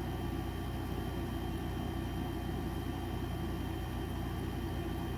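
Electric fan running: a steady whir with a constant hum.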